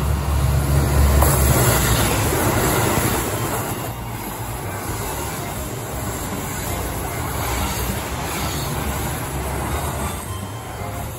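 KiHa 85 series diesel express train passing at speed. A heavy engine rumble peaks as the lead car comes by, about a second or two in, then gives way to the steady rush and wheel noise of the cars running past, easing off near the end.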